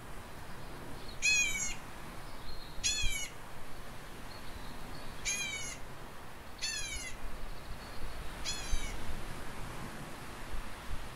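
A bird calling five times, each call a short cry that falls in pitch, with wind rumbling underneath.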